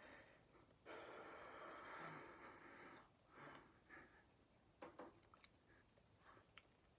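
Faint breathing and soft mouth noises from a man signing silently, with a longer hissing breath early on and a few small clicks about five seconds in.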